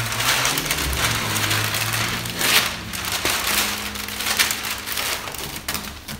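Masking paper rustling and crinkling as it is peeled off a freshly stone-chipped car sill and scrunched up by hand, in several surges.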